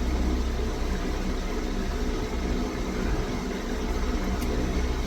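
Steady low mechanical hum with a faint click about four and a half seconds in.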